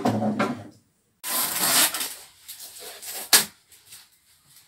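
Handling and packing noises: a burst of rasping noise lasting under a second, a few small rustles, then one sharp knock.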